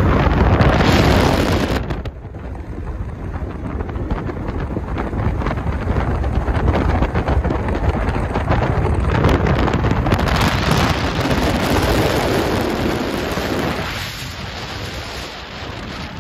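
Wind buffeting the microphone of a moving car, a loud, uneven rumbling noise mixed with road noise. It drops about two seconds in and eases again near the end.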